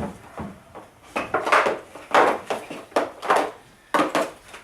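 Nylon lower-anchor (LATCH) strap being pulled through the plastic shell of a convertible car seat: about six short rustling, scraping pulls in a row.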